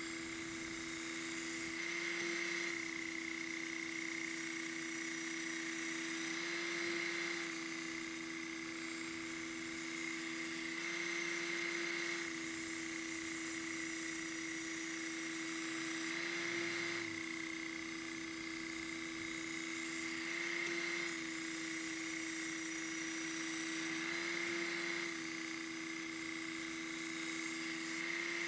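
Work Sharp Ken Onion Elite belt sharpener running with a steady motor whine while its abrasive belt grinds a kitchen knife's edge. The grinding hiss comes in passes of about four seconds, each broken by a short pause as the knife is flipped over to grind the other side.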